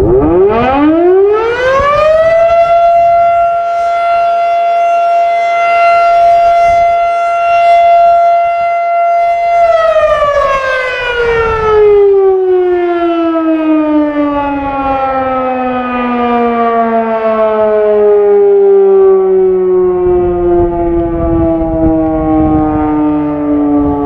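Federal Sign & Signal Model 5A outdoor warning siren sounding a test: it winds up from a standstill over about two seconds to a steady loud wail, holds it for about seven seconds, then winds down in a long, slow fall in pitch that is still falling at the end.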